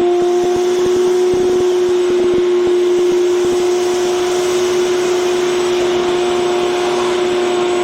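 Vacuum cleaner running steadily at a constant high hum, sucking machining swarf off the work, with scattered rattles and clicks of debris in the first few seconds.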